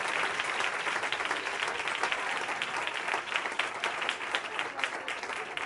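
Audience applauding: many hands clapping steadily, easing a little near the end.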